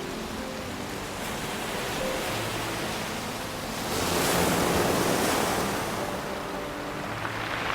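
Ocean waves washing on a shore, one wave swelling and breaking about four seconds in and receding, under soft sustained background music.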